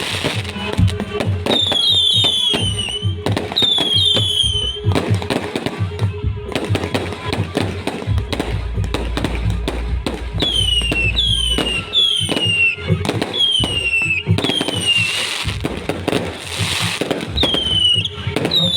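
Fireworks going off: dense rapid crackling and bangs, with repeated short whistles that fall in pitch, several in quick succession. Music plays underneath.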